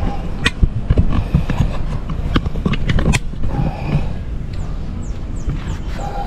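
A run of sharp clicks and knocks over a low rumble, like close handling of plants and fruit. From about four and a half seconds in, a bird calls in a quick series of short, high, falling chirps, about two or three a second.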